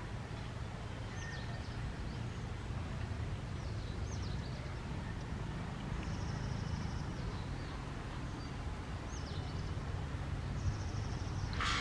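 Low steady rumble of an approaching WDP4D diesel locomotive, with birds calling over it in short falling chirps and a few quick trills. Right at the end a loud horn blast begins.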